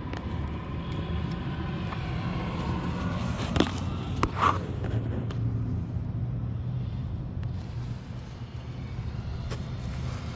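A 2009 Audi A4's turbocharged four-cylinder engine idling with a steady low hum, with two light knocks about three and a half and four and a half seconds in.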